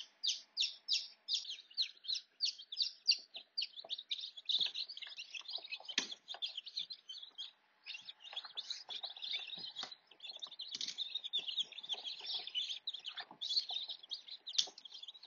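Newly hatched chicken chicks peeping in an incubator: many rapid, high peeps at once, with a few faint knocks in between.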